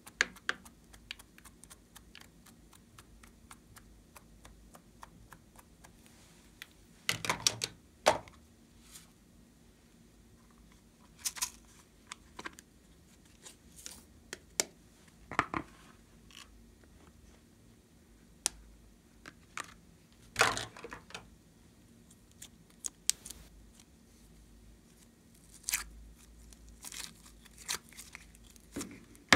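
Hands handling plastic toy containers and slime add-ins: scattered plastic clicks, taps and crinkles, with louder runs of quick clicks about seven and twenty seconds in.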